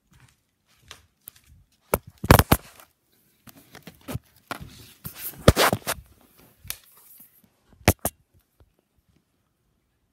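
The recording phone or camera being picked up and moved by hand: rubbing and rustling on the microphone with a series of clunks. The loudest come about two seconds in and near the middle, and two sharp knocks follow about eight seconds in.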